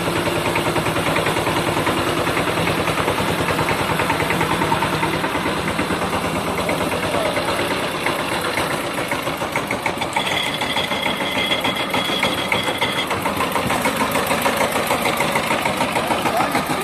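Forte 18 hp mini tractor's engine running as the tractor drives over a muddy dirt track, a steady, fast, even chugging. A thin high whine joins for a few seconds from about ten seconds in.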